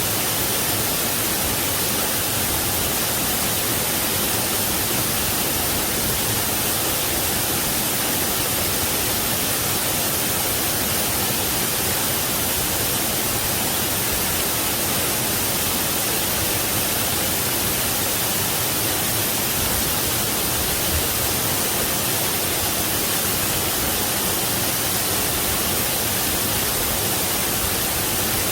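Waterfall rushing steadily, an unbroken hiss of falling water strongest in the high end.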